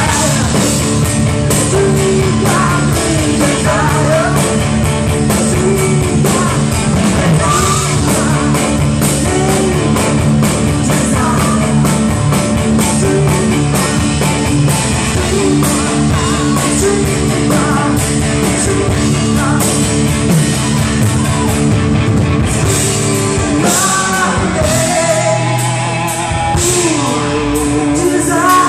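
Live rock band playing: a woman singing over electric guitars, bass, keyboards and drums, with a steady drum beat that eases off near the end, leaving held guitar and keyboard notes.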